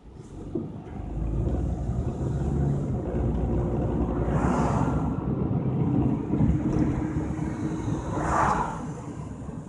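Car engine and tyre noise heard from inside the cabin as the car pulls away and drives at low speed, the rumble rising sharply about half a second in. Two brief swells of rushing noise come about halfway through and near the end.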